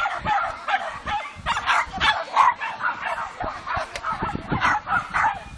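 A dog barking in rapid, excited yips, about two to three barks a second without a break, as it runs an agility course.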